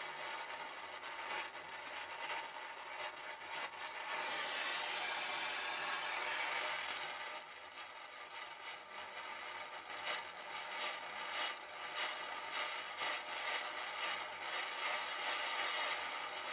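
Gas-welding torch hissing steadily as its flame welds a steel radiator pipe joint, with frequent small crackles from the weld.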